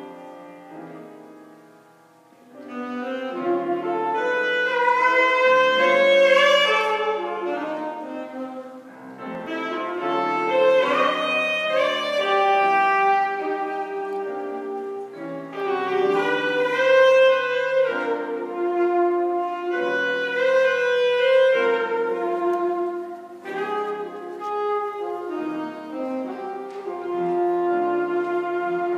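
A solo wind instrument playing a melody with grand piano accompaniment. It starts softly, grows louder about three seconds in, and carries on with held notes.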